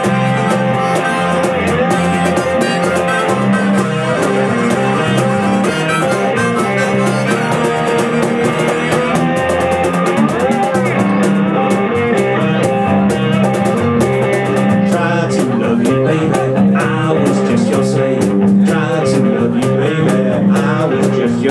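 Live band playing an instrumental passage, with guitar to the fore over bass and percussion.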